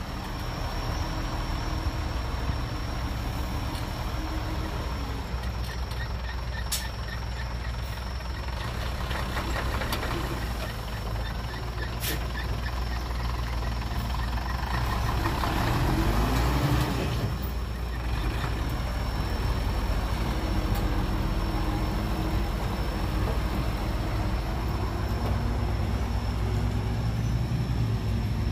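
Dump truck's diesel engine running steadily while its tipper bed is raised to dump a load of soil, with a brief rise in engine noise about halfway through.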